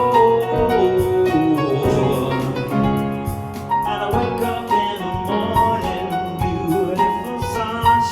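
Piano playing through a live looper: a looped piano part with a new piano layer played over it, many notes sounding together.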